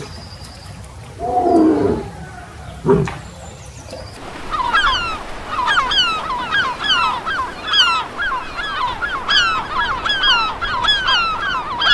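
Two short animal calls falling in pitch. Then, from about four seconds in, a flock of birds calls rapidly, the short downward-sliding calls overlapping several times a second.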